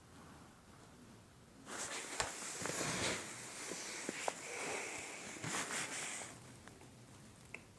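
Rustling and rubbing of a phone being handled and moved, with a few small clicks, from about two seconds in until past the sixth second.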